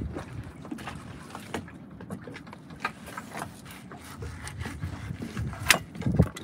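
A knife skinning a fish fillet on a wooden cutting board: scattered light clicks, scrapes and knocks as the blade and the fish are worked, with one sharp click near the end followed by a couple of low thumps.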